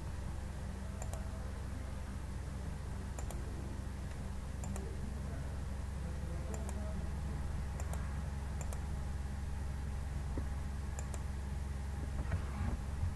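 Computer mouse clicks, about seven of them, each a quick press-and-release double tick, scattered a second or two apart. A steady low electrical hum runs under them.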